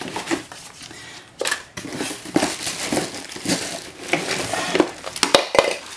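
Plastic packaging wrap crinkling and rustling in irregular bursts as vacuum parts are lifted out of a cardboard box, with the box flaps brushed and knocked now and then.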